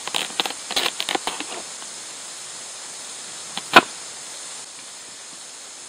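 Kitchen knife cutting and scraping the skin off a pumpkin: a quick run of short scraping clicks, then one sharp knock about four seconds in.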